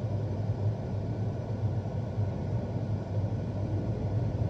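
Combine harvester running steadily while cutting canola, heard from inside the cab as an even drone with a low hum.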